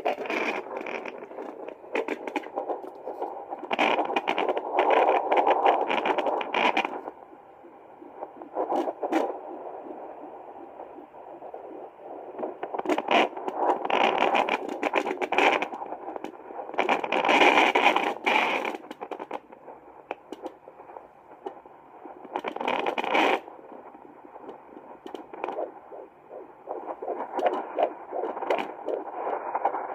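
Handheld fetal Doppler monitor's speaker output as the probe is swept over a gel-covered pregnant belly, searching for the fetal heartbeat: hissing, scraping static that swells loudly several times as the probe moves, with heartbeat-like pulsing mixed in.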